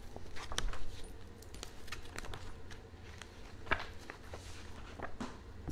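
Scattered light clicks and paper rustles of a picture book being handled close to the microphone, over a low steady hum.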